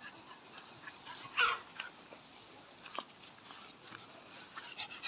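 Steady high-pitched chorus of insects in the surrounding vegetation, with a few faint ticks.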